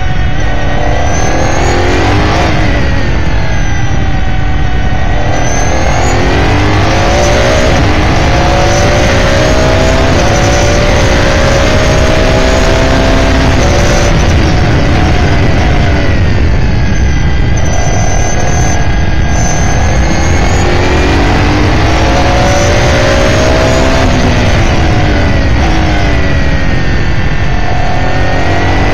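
In-car sound of an S5000 race car's 5.0-litre V8, accelerating hard out of a corner and revving up through the gears with quick upshifts, then blipping down through the gears under braking into the next corner, and accelerating again.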